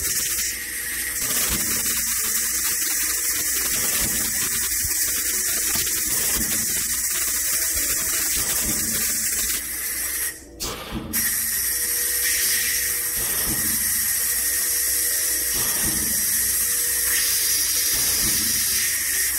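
Pressurised gas hissing steadily through a gas lift valve test bench while casing pressure is applied to the valve under test. The hiss cuts out briefly twice about halfway through, then comes back slightly stronger.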